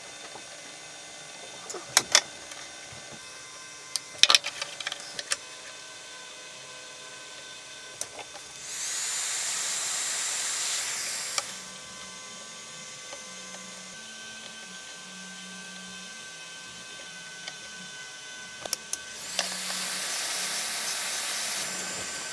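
Hot-air heat gun blowing in two bursts of about three seconds each, a steady rushing hiss with a thin high whine, aimed at heat-shrink tubing over freshly soldered wires. A few sharp clicks and taps come before the first burst.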